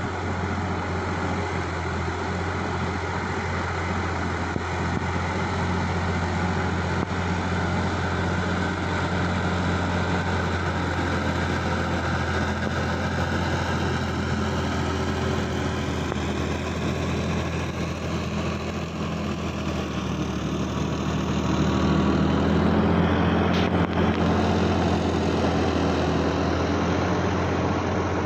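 Sonalika DI 50 tractor's diesel engine running steadily under load while it drives a rotary tiller through wet field soil. It grows louder about three-quarters of the way through.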